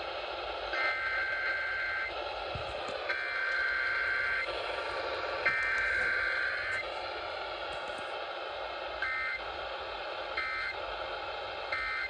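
Emergency Alert System test data bursts played through a radio's speaker. There are three warbling two-pitch SAME header bursts of about a second each, then after a pause three short end-of-message bursts, all over a steady background hiss.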